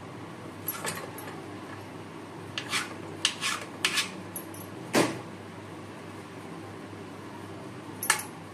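A metal spoon clinking and tapping against a bowl while potato filling is spooned into samosa cones: scattered light clicks, the loudest about five seconds in, over a steady low hum.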